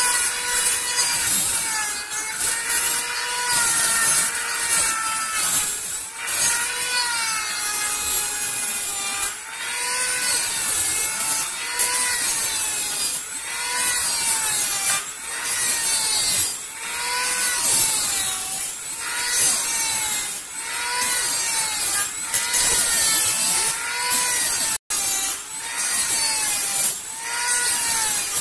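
Dremel rotary tool grinding inside a PVC pipe connector, smoothing down the inner lip. Its motor whine dips and recovers in pitch again and again as the bit is pressed into the plastic, over a steady hiss of grinding.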